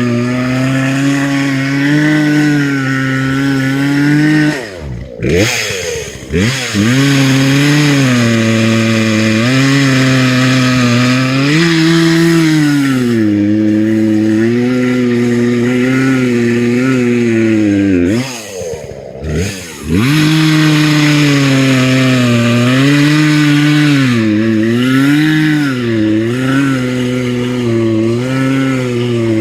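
Gas chainsaw running at high revs through a tree cut, its engine pitch sagging and recovering again and again. Twice, about 5 seconds in and again near 18 seconds, the revs drop off to idle and then climb back up.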